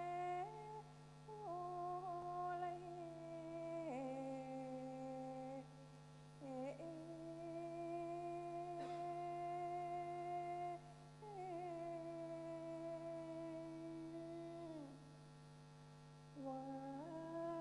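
Mixed choir singing a Thai folk-song arrangement a cappella in close harmony: long held chords, with the voices sliding and scooping between notes. The phrases break off briefly several times, with a longer quieter pause a little before the end, after which the chord comes back in.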